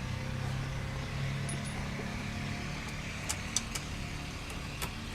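A few short, sharp clicks a little past the middle, from steering wheel parts being fitted on the column, over a steady low hum.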